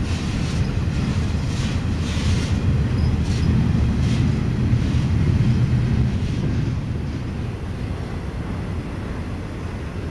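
Double-stack intermodal freight cars rolling past, a steady low rumble of steel wheels on rails. There are a few brief sharper wheel noises in the first few seconds, and it grows a little quieter after about six seconds.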